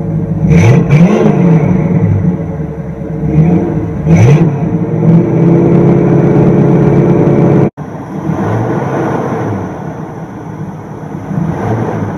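1967 Pontiac Firebird's V8 heard from the exhaust: blipped twice, about half a second in and again about four seconds in, each rev rising and falling back to a steady idle. A little past halfway the sound breaks off for an instant and the engine carries on idling more quietly.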